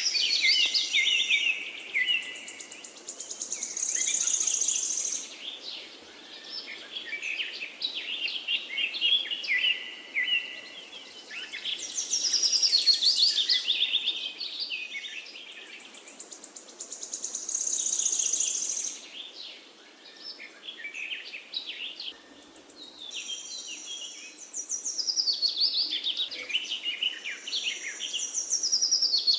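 Songbirds singing and chirping in overlapping bouts every few seconds: fast trills that slide down in pitch and high buzzy notes, with short lulls between bouts.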